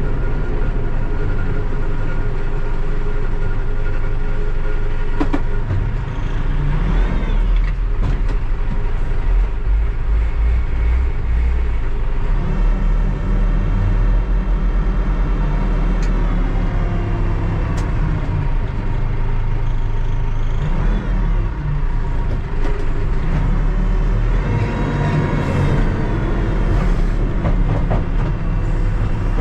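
Diesel engine of a Terex TLB-815 backhoe loader running steadily as the machine drives. A few sharp clicks and knocks sound over it, and a whine rises and falls twice.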